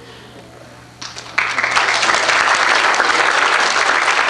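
A congregation applauding, breaking out suddenly about a second and a half in and going on steadily.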